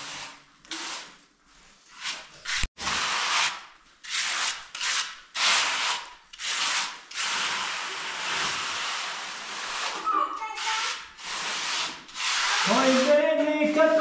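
Flat steel trowel scraping and smoothing wet cement screed on a floor, in repeated short strokes with a longer smoothing pass in the middle.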